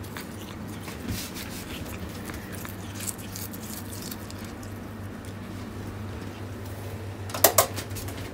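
Norwegian Forest Cat biting and chewing fresh cat grass, soft crisp crunches over a steady low hum. A short burst of loud sharp clicks and knocks comes near the end.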